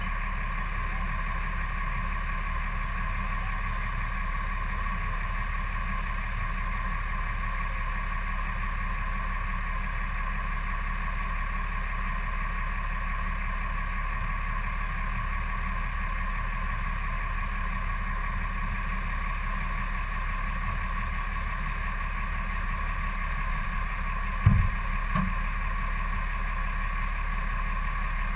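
A truck engine idling steadily. About three-quarters of the way through there is a short thump, followed by a smaller knock.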